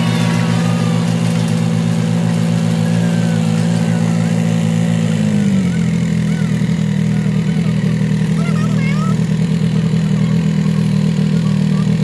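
A vehicle engine running steadily close by. Its pitch drops a step about five and a half seconds in, as it slows.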